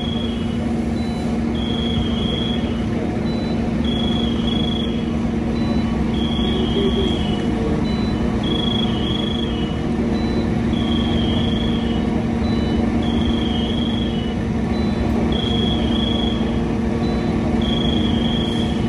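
Fire apparatus engines idling in a steady low hum, with a short, high electronic beep repeating about every two seconds, like a vehicle warning alarm.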